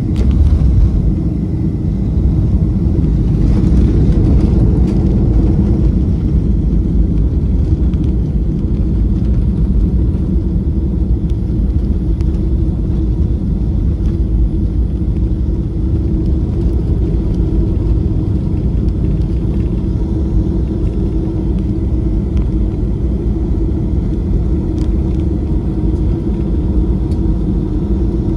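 Steady low cabin rumble of a Boeing 737-500 rolling on the ground after landing: its CFM56 engines at low thrust and the landing gear running over the pavement, heard from inside the cabin over the wing.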